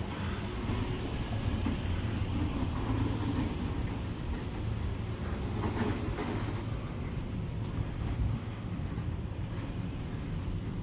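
Street traffic: the steady low rumble of a motor vehicle running close by, swelling slightly about halfway through.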